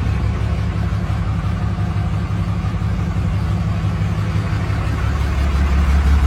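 A steady, loud low rumble with no clear rhythm or change in pitch, of the kind a running engine makes.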